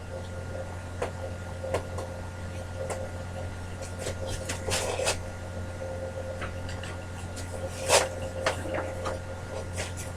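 Scattered light clicks and knocks of a screwdriver being handled and tried on screws of a bandsaw, over a steady low hum. The loudest knock comes near the end.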